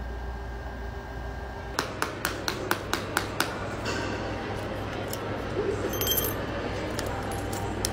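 Steady hum of a laser back-glass removal machine, which stops about two seconds in. Then a quick run of about eight sharp clicks and some scraping and glass clinks as the shattered back glass of an iPhone 13 Pro is chipped and scraped off the frame with a hand tool.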